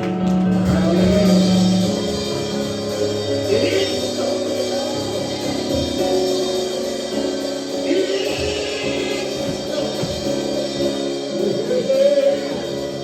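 Gospel worship music: a live band with sustained keyboard chords, guitar and drums playing, with a little singing over it.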